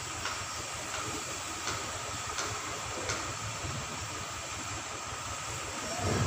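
Marker writing on a whiteboard: faint strokes and ticks over a steady hiss.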